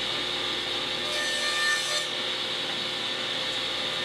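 Table saw running steadily, its blade cutting a groove into a small spalted pecan and mahogany side panel fed along the fence. The cut itself comes about a second in and lasts under a second.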